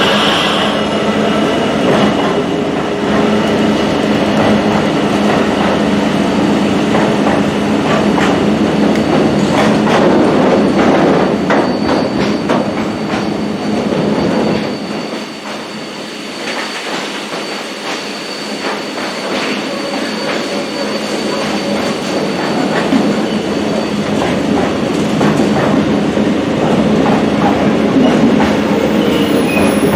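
A train running through on the rails, its wheels clattering over rail joints, with a thin high wheel squeal through the middle of the passage.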